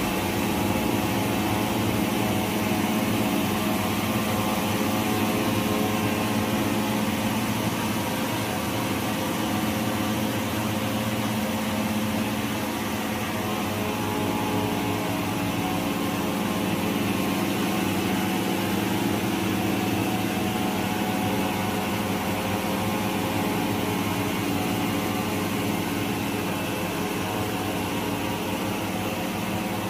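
Faux-fur (mink blanket) circular knitting machine running at a steady speed: a constant mechanical hum and whir.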